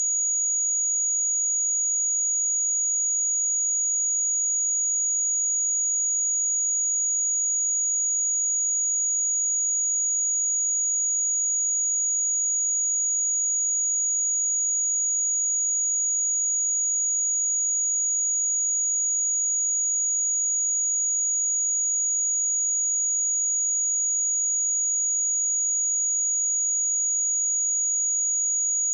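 A pure 6774 Hz sine-wave test tone, one steady high-pitched whistle held at a constant level with no change in pitch, used to check speakers or headphones.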